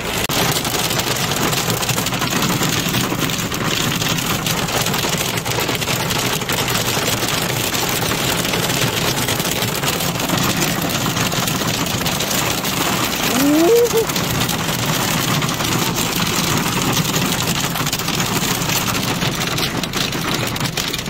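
Hail rattling steadily on a car's roof and windshield, heard from inside the cabin as a dense patter of small impacts over the car's road noise. A brief rising tone cuts through about halfway.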